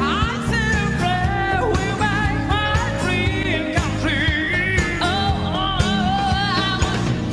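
Live pop song: a woman singing into a microphone with sliding, ornamented vocal runs, over band accompaniment with grand piano and a steady beat.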